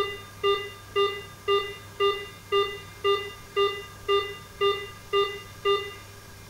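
Snooper Sapphire speed camera detector sounding its warning: a dozen short electronic beeps, about two a second, all on one pitch, stopping about six seconds in.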